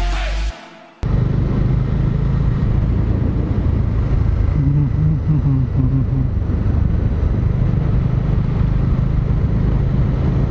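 Background music fades out in the first second. Then comes riding sound from a moving motorcycle: the engine runs steadily under a constant rush of wind and road noise.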